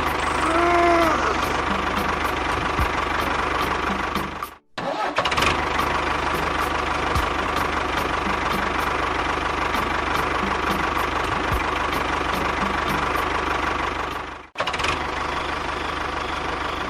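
Small motor of a DIY model tractor or bulldozer running steadily. The sound cuts off abruptly twice and restarts at once.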